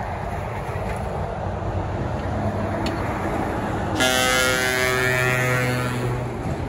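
Lorry engines and road traffic running steadily, then a truck's air horn sounds about four seconds in and is held for about two and a half seconds.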